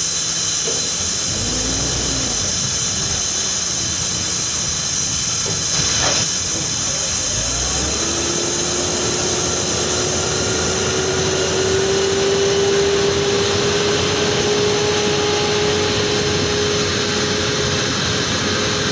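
Heavy concrete mixer trucks running, with a steady loud hiss throughout and a short sharp sound about six seconds in. From about eight seconds in a whine rises slowly in pitch as a truck pulls away up the road.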